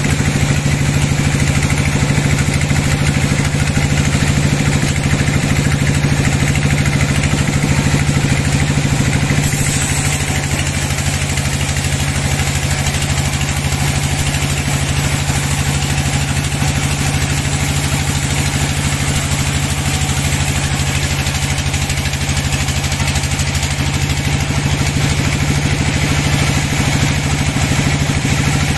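Sawmill band saw running and cutting lengthwise through a large log: a steady machine hum under the continuous noise of the blade in the wood.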